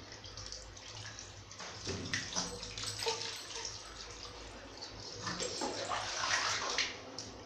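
Water splashing and dripping while hands rub and wash a baby's wet skin, busiest about two seconds in and again in the second half.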